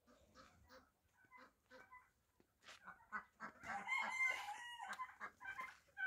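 A rooster crows once, a long call of about a second and a half starting about three and a half seconds in, over scattered short clucks and chirps from the flock.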